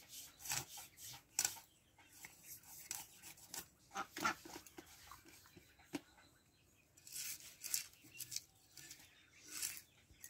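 Fish being scaled and cut on a boti, a curved blade fixed upright in a wooden block: faint, irregular scraping strokes of fish against the blade.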